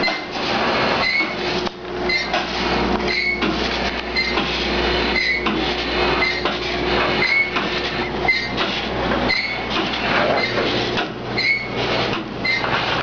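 The SS Virginia V's triple-expansion steam engine running, its rods and valve gear clanking in a steady rhythm of about one beat a second over a low machinery rumble and hum.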